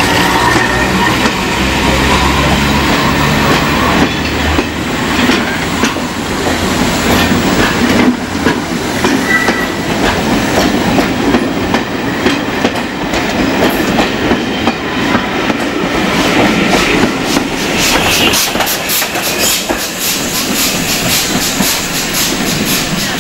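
A passenger train running past close by, its wheels clattering over the rail joints. From about eighteen seconds in, a fast, even beat comes in as a steam locomotive approaches.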